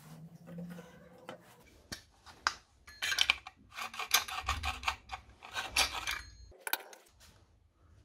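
Hands handling an electric scooter's toothed rubber drive belt and its wheel's metal belt pulley. There is a string of clicks and light knocks, with several short rasping rub noises in the middle seconds.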